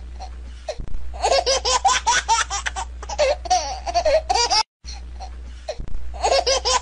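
A person laughing, a high-pitched rapid giggle in quick pulses. It breaks off briefly about two-thirds of the way in, then starts again. A steady low hum runs underneath.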